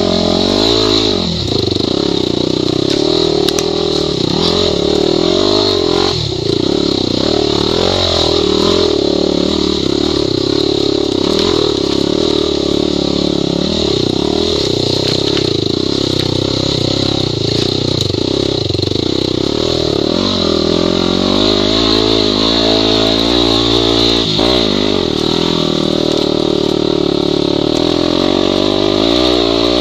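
Yamaha WR250 enduro motorcycle's 250 cc single-cylinder four-stroke engine revving up and down continuously while riding off-road, heard close up from the bike itself.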